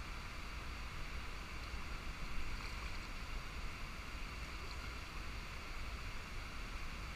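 Steady hiss of river water running past, with a low wind rumble on the microphone.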